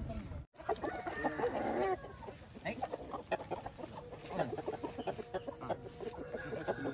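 Roosters calling: one longer call about a second in, then short scattered clucks.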